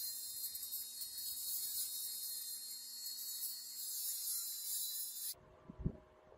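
A steady high hiss that cuts off suddenly about five seconds in, followed by a couple of soft low thumps.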